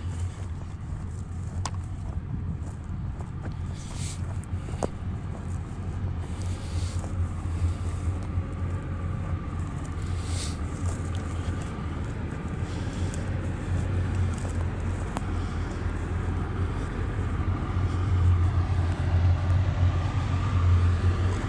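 Cat 323F excavator's diesel engine idling with a steady low drone and a faint high whine, growing louder near the end.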